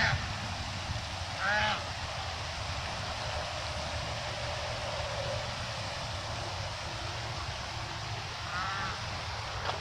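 Goose honking: one loud honk about a second and a half in and a fainter one near the end, over steady background noise.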